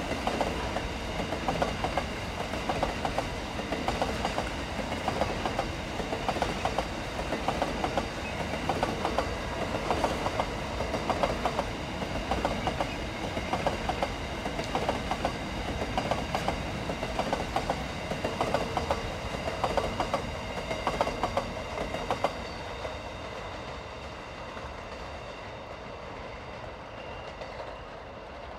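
Empty coal hopper wagons of a freight train rolling past, their wheels clacking over rail joints in a repeating rhythm over a steady rumble, with a faint steady high whine. About 22 seconds in the clacking stops as the last wagons pull away, leaving a quieter fading rumble.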